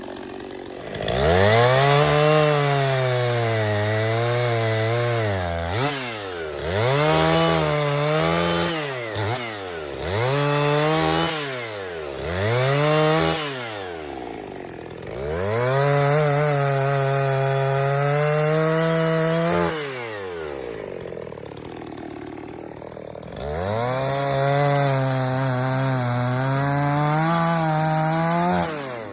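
Gas chainsaw bucking a black walnut log: the engine revs to full throttle and cuts for several seconds at a time, its pitch wavering as the chain bites, then drops back to idle. Three long cuts, with a run of short throttle blips in between.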